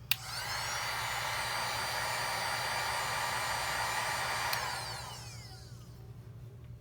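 Hot-air gun switched on with a click, its fan whining up to speed and blowing steadily for about four and a half seconds. It is then clicked off and winds down with a falling whine. The heat is softening adhesive so a phone component can be worked loose.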